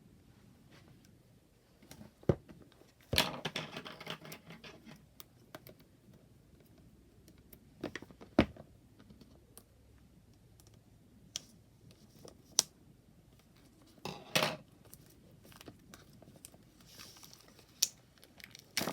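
Tarot cards and their packaging being handled: scattered sharp taps and clicks, with brief rustles about three seconds in and again about fourteen seconds in.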